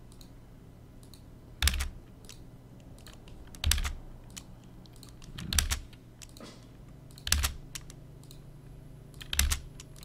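Computer keyboard keystrokes and mouse clicks: a louder keystroke with a low thump about every two seconds, five in all, with lighter clicks between. These are the keys and clicks that enter a polyline arc point by point in CAD software.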